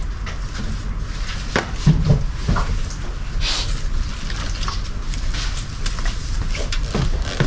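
Split firewood logs being tossed and stacked, giving scattered wooden knocks and clunks at uneven intervals.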